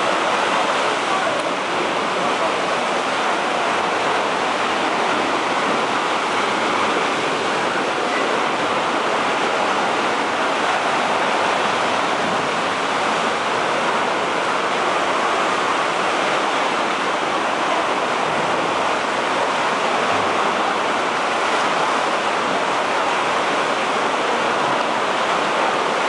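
Steady rushing roar of ocean surf washing into a sea cave, an even noise with no distinct breaks between waves.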